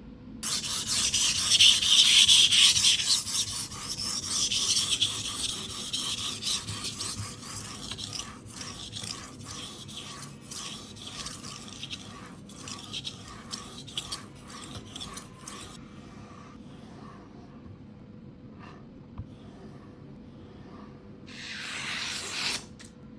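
A sharpening stone on a guided knife sharpener being stroked along the edge of a Shun petty knife: a continuous rasping scrape of repeated strokes. It is loudest over the first few seconds and grows quieter, with a short louder run of strokes near the end.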